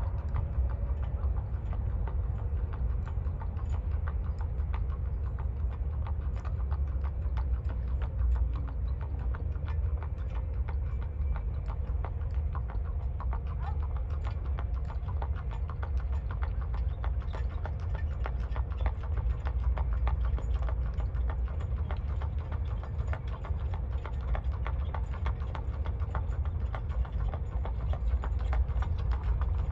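Hooves of a Tennessee Walking Horse gelding clip-clopping in a dense, uneven run of clicks, over a steady low rumble.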